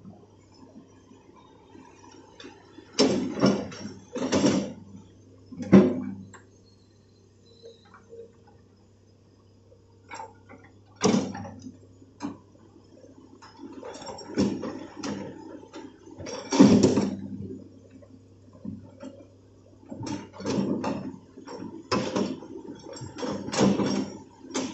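Hitachi hydraulic excavator's diesel engine droning steadily, under irregular loud rushes of scraping, sliding noise as the bucket drags and spreads loose soil, in bunches a few seconds in and again through the second half.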